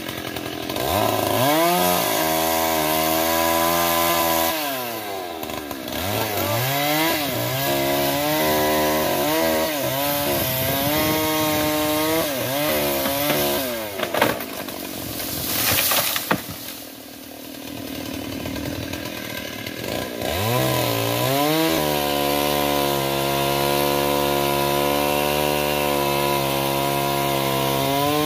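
Two-stroke chainsaw at full throttle cutting into a trembesi (rain tree), its pitch wavering under load. It drops back toward idle twice: briefly about five seconds in, and for several seconds past the middle. Then it revs up again and holds a steady high speed.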